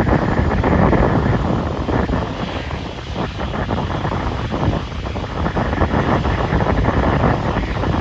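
Strong gusty wind buffeting the microphone: a loud, rushing rumble that swells and dips, easing briefly about three and five seconds in.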